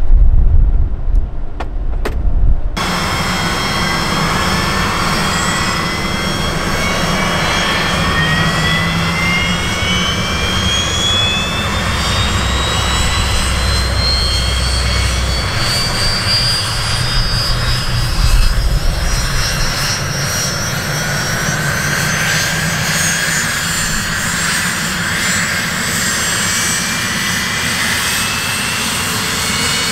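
Pilatus PC-24 business jet's turbofan engines starting up: after a couple of knocks at the start, a loud rush of jet noise cuts in a few seconds in, and its whine rises steadily in pitch for about twenty seconds as the engines spool up.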